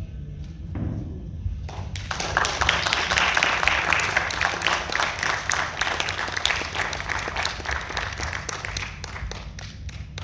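Audience applauding: many hands clapping that begins about two seconds in, swells and then thins out near the end.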